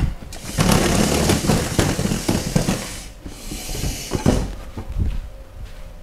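Hands rubbing briskly during a massage, a rapid scratchy friction. It comes in two spells: about two and a half seconds, a short break, then about a second more.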